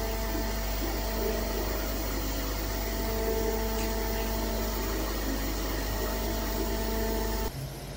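Mobile crane's diesel engine and hydraulic pump running, a steady hum with a whine that comes and goes; it cuts off suddenly near the end.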